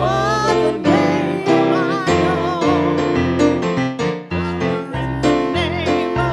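A woman singing a gospel hymn with vibrato over chords on an electric piano. Her sung lines come and go, and the keyboard carries on between them.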